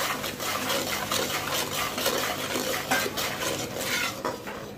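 Steel ladle scraping and clinking against a metal kadhai as spice powders are stirred into hot oil, with a frying sizzle underneath: the masala is being roasted in the oil. The scraping eases off shortly before the end.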